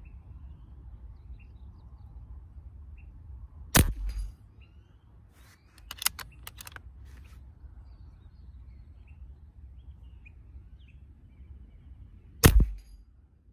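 Two shots from a .22 PCP air rifle, a Beeman Commander, each a sharp crack followed by a short low thump, nearly nine seconds apart. A few lighter clicks come between them, and birds chirp faintly.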